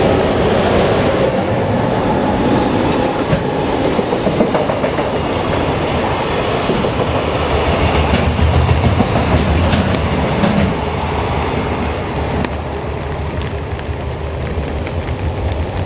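A JR Freight EF210 electric locomotive passes, followed by a long string of loaded container flatcars rolling by with a steady rumble and wheel clatter. The sound eases slightly in the last few seconds.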